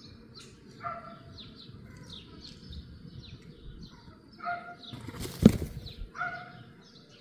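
Small garden birds chirping over and over in short high notes, with a lower call repeating several times. About five seconds in comes one brief, loud rustling flutter, the loudest sound.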